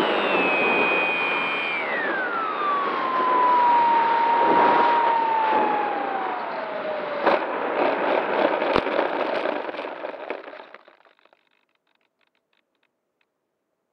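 Onboard audio of a Bixler electric foam RC plane landing: the electric motor's whine falls steadily in pitch as it is throttled back, over wind rush. About seven seconds in there is a knock, then a run of bumps and rustling as the plane touches down on grass and slides to a stop.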